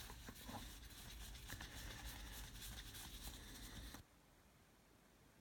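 Faint rustling and soft ticking of a stack of baseball cards being slid and flipped through by hand, cut off suddenly about four seconds in, leaving near silence.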